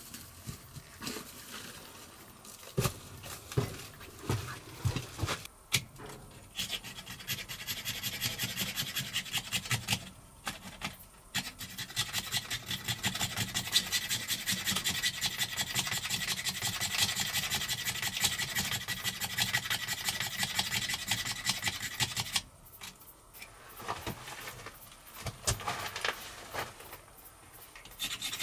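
A few knocks of wood being handled, then quick, even scraping strokes kept up for about fifteen seconds, with lighter scrapes and clicks after. This is tinder being scraped up by hand to light a fire.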